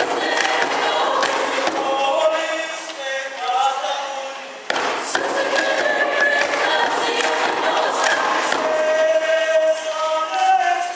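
Mixed choir of men and women singing held chords together. The singing thins and fades a few seconds in, then a new phrase comes in abruptly at full strength a little before the halfway point.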